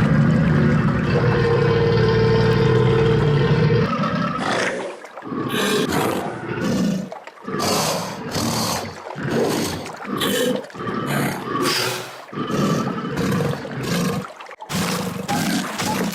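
Crocodile-themed lightsaber sound font playing: a loud, steady growling sound for about four seconds, then a run of short separate bursts of crocodile-style roars and hisses, about one a second.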